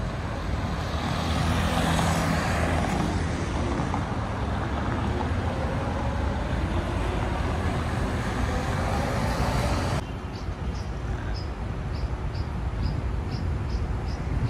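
Road traffic going by, with engines rumbling over a steady road noise. About ten seconds in the sound changes abruptly to a quieter background with a series of short high chirps, about two a second.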